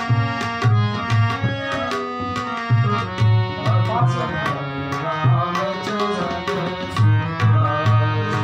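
Instrumental passage of a Hindu devotional bhajan: tabla playing a steady rhythm, with deep strokes about twice a second, under a sustained melody instrument.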